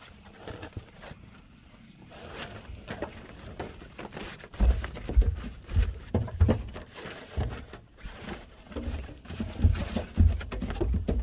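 A woven plastic outdoor mat rustling as it is spread out in a pickup bed, then, from about four and a half seconds in, irregular heavy low thumps and knocks as a person crawls over it on hands and knees on the bed floor.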